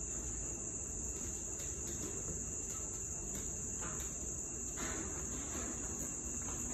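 Crickets trilling steadily in a high continuous drone, with a few faint soft knocks scattered through it.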